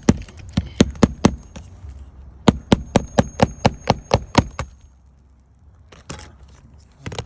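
Hammer driving a nail into a roof tile: a handful of sharp strikes, then a quicker run of about ten blows with a faint metallic ring under them, and a few lighter knocks near the end.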